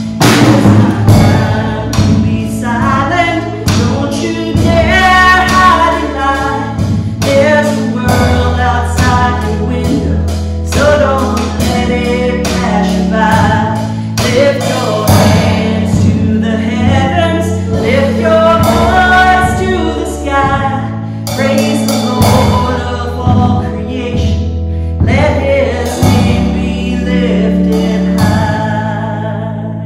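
A woman singing a gospel worship song with a small band, drum kit and sustained low accompaniment. The music fades out at the song's close near the end.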